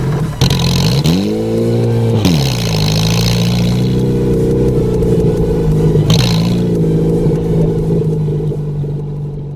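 Car engine idling, revved once about a second in: the pitch rises, holds briefly and falls back to idle about a second later. A shorter, smaller blip of the throttle comes near the middle.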